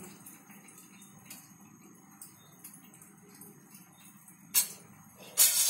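Faint steady background with a few light ticks, then about four and a half seconds in a sharp clatter of metal kitchen utensils, followed near the end by more loud clattering as a steel spatula is picked up against the griddle.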